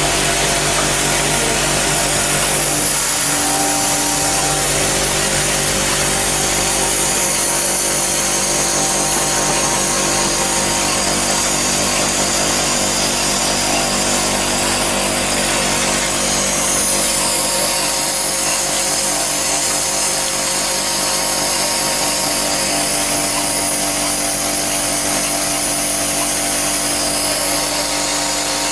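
Vibratory bowl feeder running: a steady machine buzz over a dense hiss of loose plastic pen barrels rattling in the bowl.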